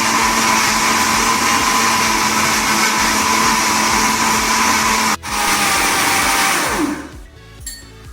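Electric mixer grinder running at full speed, grinding biscuits, milk and Eno into cake batter. About five seconds in it cuts out for an instant and starts again, then it is switched off about seven seconds in and winds down with a falling pitch.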